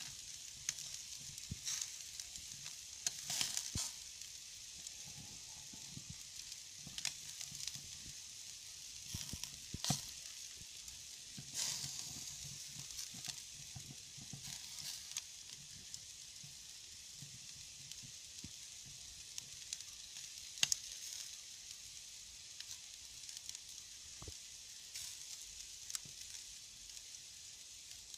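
Meat skewers sizzling over glowing wood embers: a steady hiss with irregular sharp pops and crackles, now and then a louder pop.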